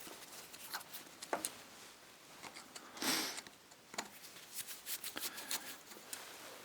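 Hand tools being handled at a workbench: scattered light metallic clicks and rattles with brief rustling, as sockets and a screwdriver are sought out and tried on the starter motor's small bolts.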